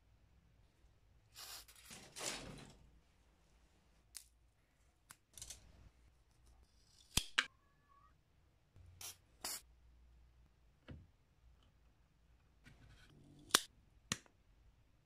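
Twigs and thin wooden strips being handled and cut: a soft rustle about two seconds in, light taps, and several sharp clicks in pairs from about halfway on.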